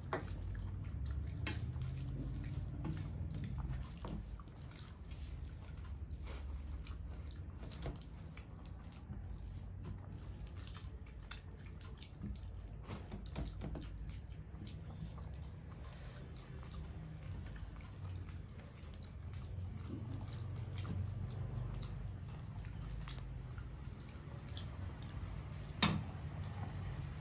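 Eating by hand: fingers mixing rice with curry on steel plates, with wet squelching, chewing and scattered small clicks, and one sharper click near the end. A low steady hum runs under it.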